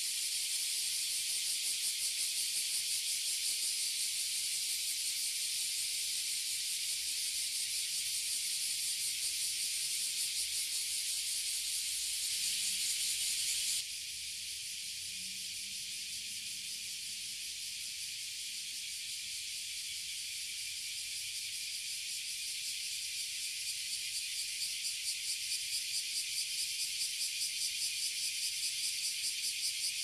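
A dense chorus of Japanese cicadas, bear cicadas (kumazemi) and oily cicadas (aburazemi), buzzing continuously in a high-pitched, rapidly pulsing drone. The chorus drops in level about fourteen seconds in and swells again toward the end.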